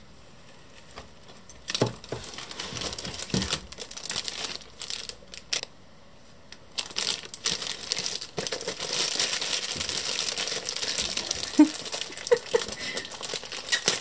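Plastic and paper packaging crinkling and rustling as items are handled and unwrapped. It starts about two seconds in, pauses briefly around the middle, then crinkles more steadily through the rest.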